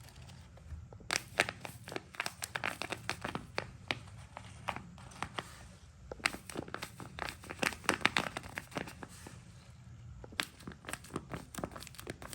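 Paper crinkling and rustling in quick irregular crackles and clicks as papercraft pieces and a paper box are handled and folded, with a short pause near the end.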